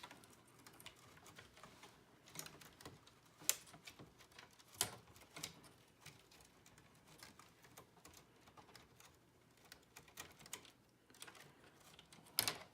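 Faint, irregular plastic clicks and rattles as wire-harness connectors are unplugged inside a pachinko machine and the wires are worked out of a plastic clip. A few sharper clicks stand out, one about three and a half seconds in and another near the end.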